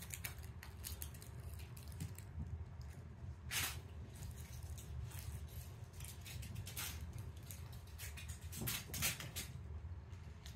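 Kittens' paws and claws pattering and skittering on a hardwood floor as they run and scuffle in play, a string of small ticks and scrapes with louder scuffles about three and a half seconds in and again near nine seconds. A steady low hum of room tone lies underneath.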